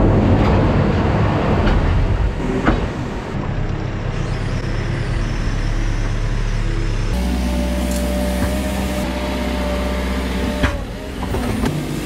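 Diesel engine of a farm loader running steadily while its bucket scoops and tips wood chip, with a few sharp knocks of the steel bucket on the concrete floor and hopper.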